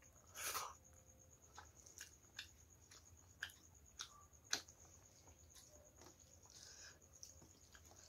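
Quiet eating sounds of rice and dal eaten by hand: a short wet mouthful sound about half a second in as a handful goes into the mouth, then chewing with a few sharp clicks around the middle while fingers mix rice and dal on a steel plate.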